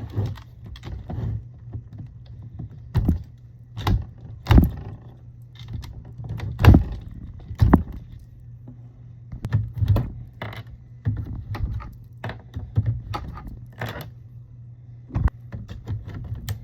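Irregular clicks, knocks and light rattles of a plastic Ford Expedition fuse box and small parts being handled and taken apart by hand, with several louder knocks scattered through, over a steady low hum.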